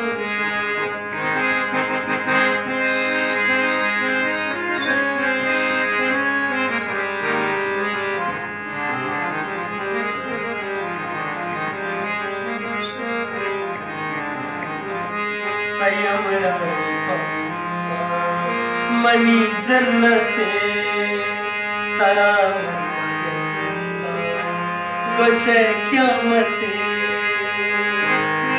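Hand-pumped harmonium playing a melodic interlude over a steady held drone note, its reedy chords running without a break.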